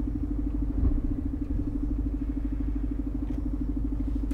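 Lorry's diesel engine running on the move, heard from inside the cab: a steady drone over a low rumble.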